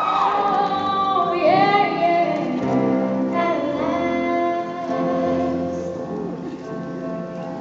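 A young woman singing solo into a microphone: long held notes, growing quieter toward the end.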